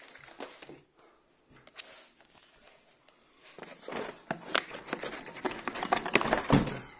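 Cardboard box and plastic packing strap rustling and clicking as the strapping is cut and pulled away, busier from about halfway, with a heavy thump near the end.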